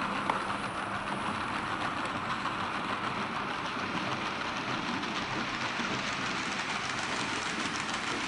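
Märklin H0 model freight wagons rolling past on metal M-track: a steady rattling rumble of wheels on the rails, with quick clicks at the rail joints that grow more frequent in the second half.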